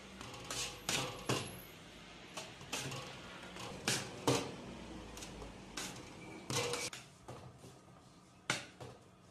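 Metal bench scraper knocking and clacking on a steel work table as bread dough is cut into portions: irregular sharp knocks, thinning out near the end, over a low steady hum.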